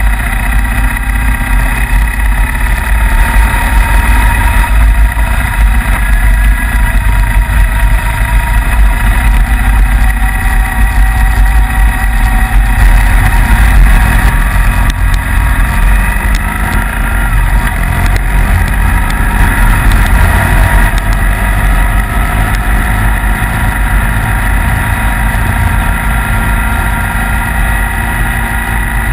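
Sidecar motorcycle engine running under steady load, heard close from the riding machine, its pitch drifting up and down with one rising climb about two-thirds of the way through. A heavy low rumble of wind buffets the microphone throughout.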